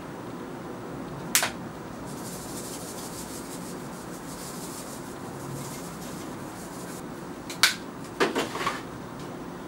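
Steak seasoning shaken from a plastic spice jar onto a roast: a click of the jar's lid, a soft hiss of sprinkling for a few seconds, then another click, over a steady room hum.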